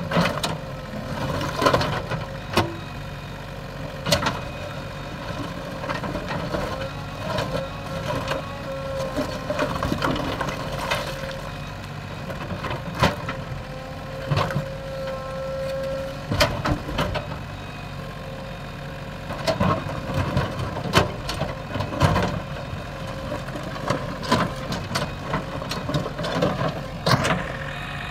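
JCB 3DX backhoe loader's diesel engine running steadily while the backhoe digs, with repeated sharp clanks and knocks of the bucket against stones throughout.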